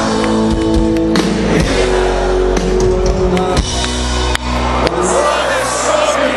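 Live rock band playing loud through a big outdoor PA: electric guitars, bass and drums, with singing, recorded from inside the crowd.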